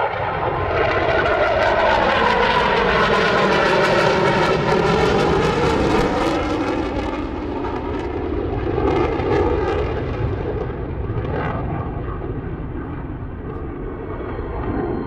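Panavia Tornado jet fighter's twin RB199 turbofans in a loud display pass. The engine noise swells within the first second, stays at its loudest for several seconds with a sweeping, phasing rise and fall in tone, and eases off after about seven seconds as the jet turns away.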